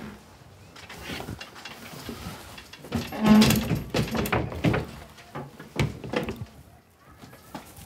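Large drawing table being shoved and wedged into place: irregular knocks, bumps and scraping of the table against furniture, busiest around the middle.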